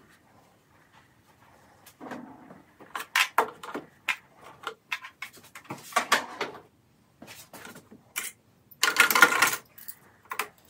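Small items being taken out of a clear methacrylate organizer: after a near-quiet start, irregular clicks and clatters of plastic and metal hair grips and nail scissors against the acrylic, with one longer rattle about nine seconds in.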